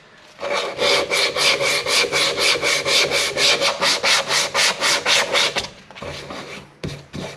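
A strip of sandpaper pulled back and forth, shoe-shine style, around the outside of a hand-carved elm bowl, at about five quick strokes a second, stopping about five and a half seconds in. A few slower, quieter strokes and a couple of sharp knocks follow near the end.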